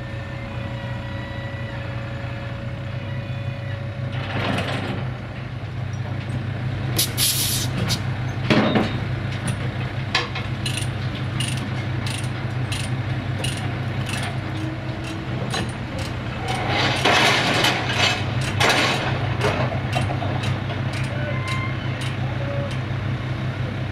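Heavy diesel engine idling steadily, while load chains and ratchet binders are handled on a steel low-bed trailer: a run of sharp metal clicks and clanks, a louder rattling spell about seventeen seconds in, and a short hiss of air about seven seconds in.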